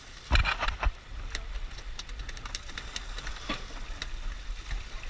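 Low, steady rumble of a boat's engine, with scattered clicks and knocks of gear on deck and a loud clattering knock about half a second in.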